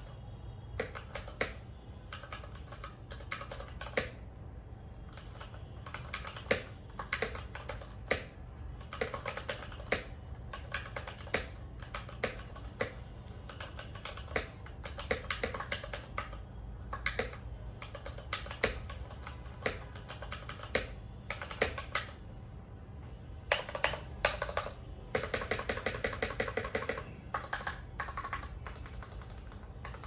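Typing on a Ducky x Varmilo MIYA Pro 65% mechanical keyboard with factory-lubed Cherry MX Brown switches and PBT keycaps: irregular key presses, with faster, denser runs of typing near the end.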